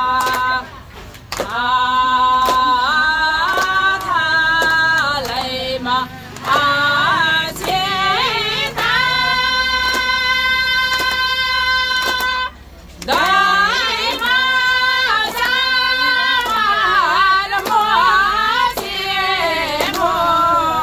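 A group of women singing a song together in unison, with long held notes and two short breaks for breath. Sharp clicks keep a steady beat about twice a second underneath.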